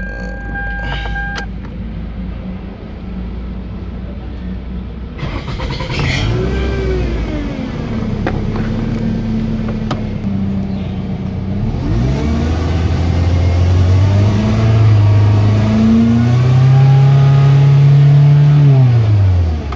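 Toyota Camry engine idling, then revved several times, its pitch rising and falling, with the longest and highest rev held near the end before it drops back. The car is being checked for poor pulling power, and the mechanic judges that the engine sounds bad and that something is wrong.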